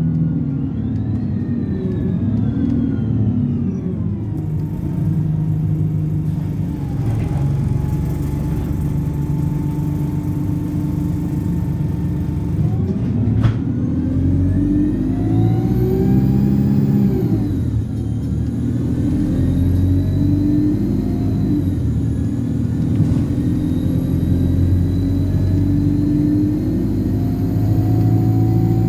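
Alexander Dennis Enviro200 single-deck bus engine running under varying load, with a loud, high-pitched turbocharger whistle that glides with the revs: it falls over the first few seconds, climbs to a peak past the middle and drops away suddenly, then rises slowly again.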